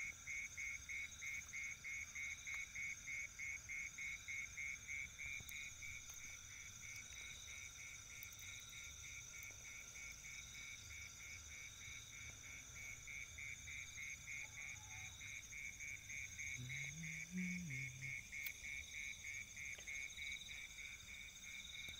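Night chorus of insects and frogs by a river: a steady high trill under a chirp that pulses about three times a second and grows fainter after about six seconds.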